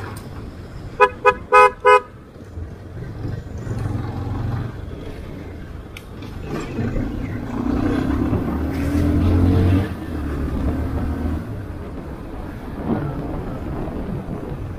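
A vehicle horn toots four times in quick succession about a second in, over the steady running of a motorcycle moving through traffic. Around the middle, a deeper engine rumble swells and then fades as an oncoming truck goes by.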